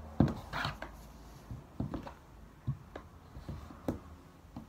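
A string of irregular knocks and thumps, the loudest just after the start and about half a dozen fainter ones spread through the rest.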